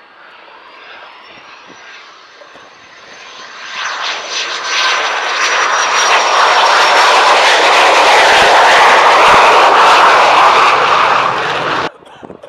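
Saab JAS 39 Gripen's single Volvo RM12 jet engine on landing approach, passing low and close. A thin high whine slides downward as it comes in, then a loud jet rush builds from about four seconds in and cuts off suddenly near the end.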